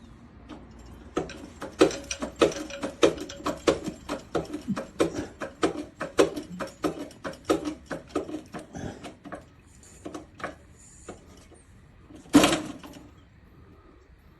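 A mechanism clicking in a steady rhythm, about three clicks a second for roughly eight seconds, fading toward the end, followed a few seconds later by a single louder clunk.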